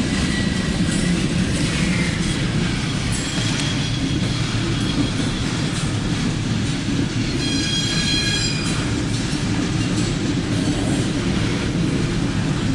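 A loaded coal train's hopper cars rolling past steadily on steel wheels. About seven and a half seconds in, the wheels squeal on the rail at a high pitch for around a second.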